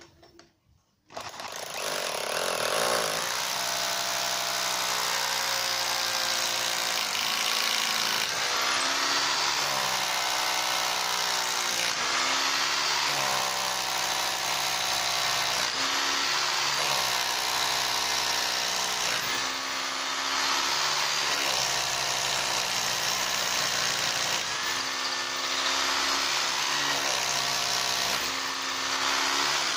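Electric drill boring a long bit down through a softwood door sill, running continuously from about a second in, its motor pitch repeatedly dipping and recovering as the bit bites into the wood. It is drilling the hole for a long screw that will fix the sill down.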